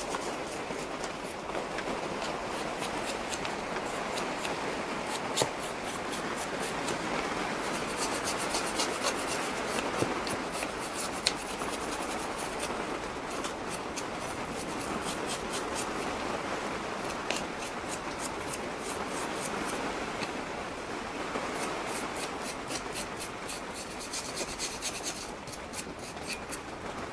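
Wire brush scrubbing surface rust off a brake caliper carrier in quick, repeated scraping strokes.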